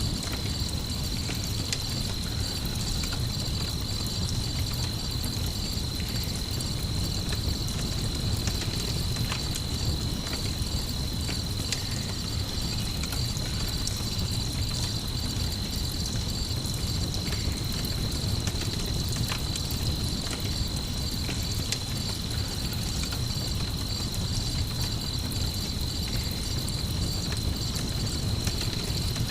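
Crickets chirping in a steady, fast-pulsing trill over a crackling campfire, with scattered small pops and a constant low rumble underneath.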